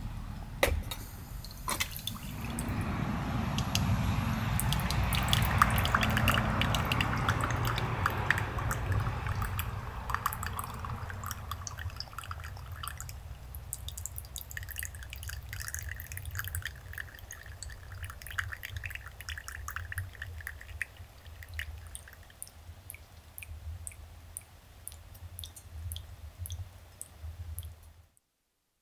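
Liquid pouring and dripping, with many small clicks and knocks. The sound swells and fades over the first dozen seconds, runs on more thinly, then cuts off suddenly near the end.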